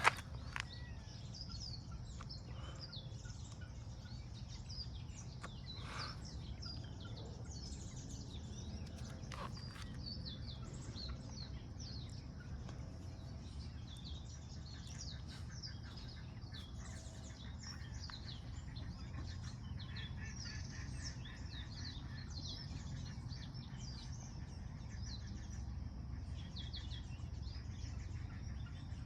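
Many small birds chirping and calling in a dense, overlapping chorus of short high notes, over a steady low background rumble.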